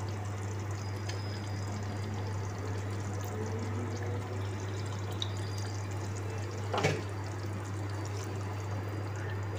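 Egg korma gravy simmering in a pan, a steady bubbling hiss over a constant low hum, with one knock about seven seconds in.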